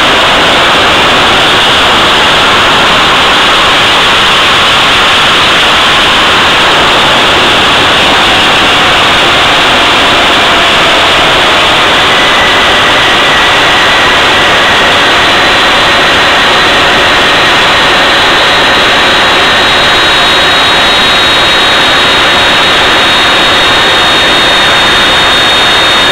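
Jet engine running steadily at power on a thrust test: a loud, even rush with a faint high whine held at a constant pitch.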